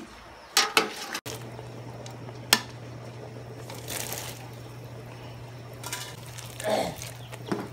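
Sharp clinks of a metal pot and utensils, then a short rush as carrots and green beans are tipped from a mesh strainer into a pot of hot broth. A steady low hum starts about a second in.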